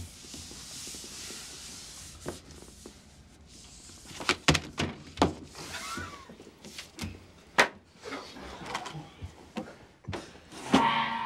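Scattered sharp knocks and thuds of hands and game cards on a wooden tabletop, single hits a second or more apart, with a louder burst of noise just before the end.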